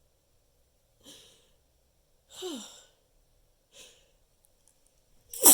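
A person in a sneezing fit breathes audibly three times, the middle breath a sigh that falls in pitch. At the very end a loud sneeze begins.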